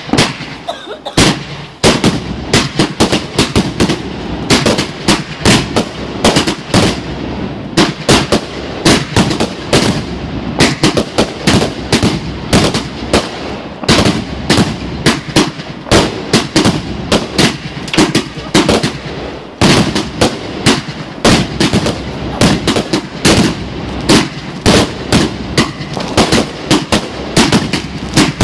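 Fireworks going off in a rapid barrage: one sharp bang at the start, then from about two seconds in a dense, unbroken string of loud bangs from shots launching and bursting, several each second.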